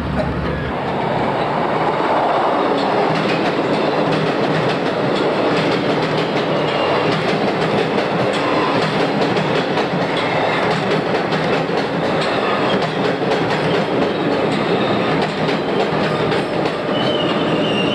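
Budd-built stainless-steel electric multiple-unit train running close past the platform, a steady rumble that builds about a second in, with wheels clicking over the rail joints. A thin, high wheel squeal comes in near the end.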